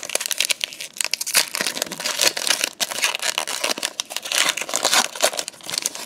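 Foil wrapper of a Pokémon TCG Hidden Fates booster pack crinkling and tearing as it is handled and opened, a dense run of sharp crackles.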